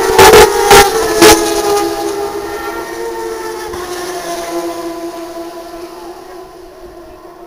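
Turismo Carretera race car's straight-six engine passing and receding, its note falling in pitch and fading away. Three loud sharp cracks come in the first second and a half.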